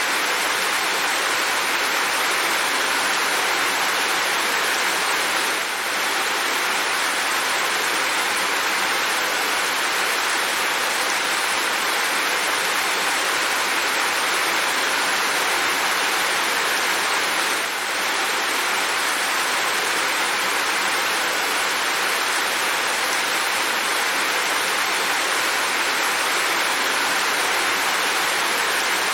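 Steady heavy rain, an even hiss of falling water with no single drops standing out, dipping slightly in level twice for a moment.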